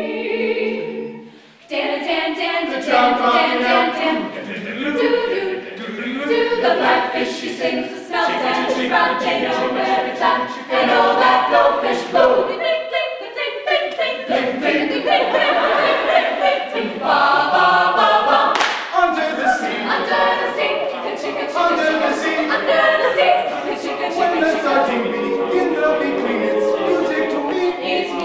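Mixed-voice a cappella group singing live. A held chord breaks off about a second and a half in, then the voices come back in a rhythmic arrangement with sharp percussive clicks running through it.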